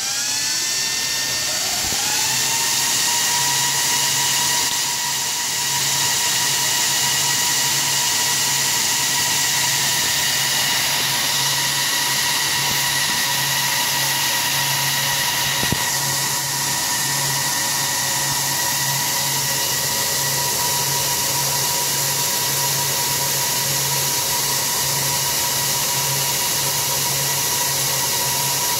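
HP ProLiant ML350 G6 server's cooling fans spinning up at power-on, their whine rising in pitch over the first two seconds. They then run loud and steady with a high whine and a low, regularly pulsing hum.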